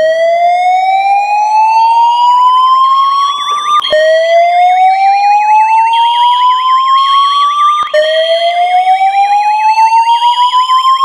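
Building fire alarm's evacuation tone: a slow-whoop pattern of rising sweeps about four seconds long, three in a row, each starting over with a click, signalling an emergency evacuation. A faster warbling alarm tone sounds alongside from about two seconds in.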